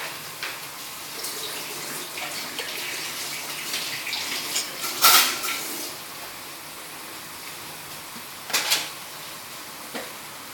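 Metal spatula stirring a watery, bubbling sauce in a wok: a wet swishing and simmering with spatula scrapes against the pan, the loudest about halfway through and another some three seconds later.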